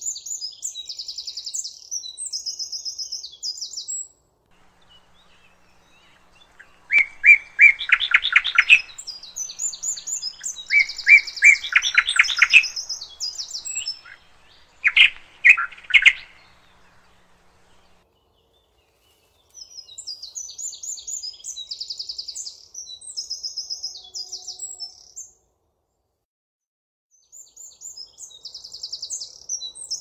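Songbirds singing, at least two birds. One sings high, fast-trilled phrases of about two to three seconds, repeated with pauses. A second, lower and louder song comes in bouts over the middle of the clip.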